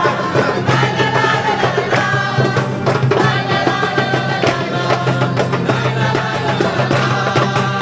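Music with singing voices over a steady low drone and a regular drum beat.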